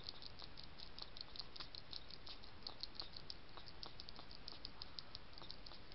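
European hedgehog feeding from a shallow metal tray, its mouth making a quick, steady run of small clicks, several a second, over faint background hiss.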